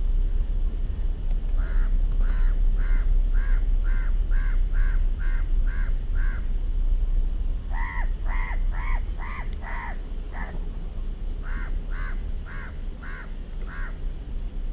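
A crow cawing in three runs of quick, evenly spaced caws, about two a second; the middle run is the loudest.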